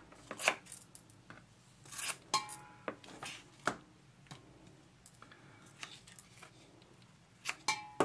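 Sharp carbon-fiber scissors snipping through carbon fiber cloth to trim the excess from a mold: several crisp snips at irregular intervals.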